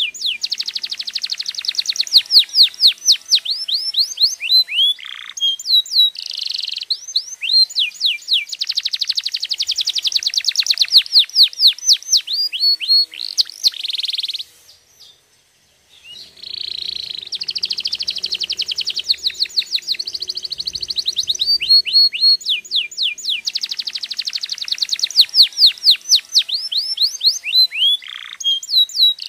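Domestic canary singing: long, fast trills of quick downward-sweeping notes, one run after another, breaking off briefly about halfway through before starting again.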